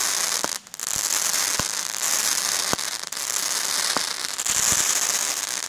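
Lesli 'Monkey Business' consumer firework going off: a loud, steady fizzing hiss from the sparking shots, with about six sharp pops at uneven intervals and a brief lull a little under a second in.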